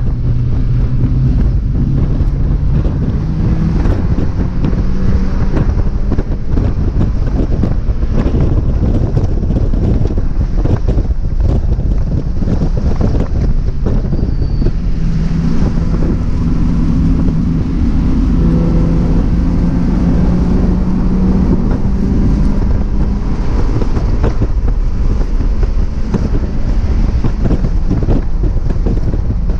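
1999 Mazda Miata's four-cylinder engine at racing revs, its pitch climbing and dropping through gear changes and braking, heavily buried under wind buffeting on the microphone.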